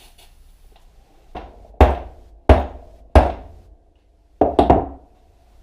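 Hammer blows on a stripped Honda Magna engine part, being knocked apart: three hard strikes about two-thirds of a second apart, each with a short ring-out, then two more in quick succession near the end.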